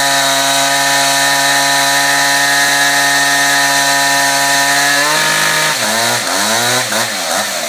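Concrete chainsaw running steadily at high speed. About five seconds in, its pitch drops, then swings up and down several times.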